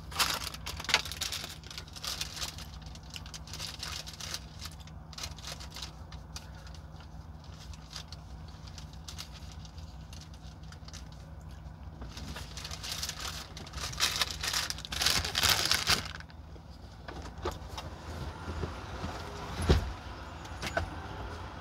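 Close-up eating sounds: chewing crispy fried chicken, with rustling of plastic food gloves, coming in loud patches about a second in and again for several seconds past the middle. Under it a steady low hum of an idling truck engine.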